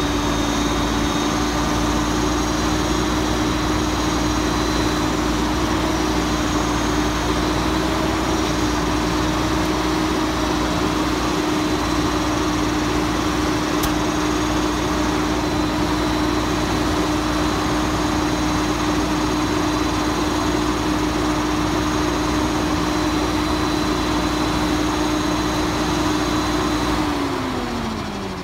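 Mack Granite diesel garbage truck engine running at a steady raised speed, with a thin high whine alongside, while the truck-mounted crane works. Near the end the engine speed glides down to idle and the whine stops.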